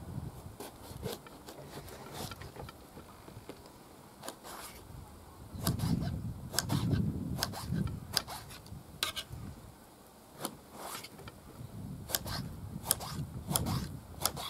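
Kitchen knife cutting an eggplant on a wooden cutting board: irregular sharp knocks as the blade slices through and strikes the board, with a low rumble at times.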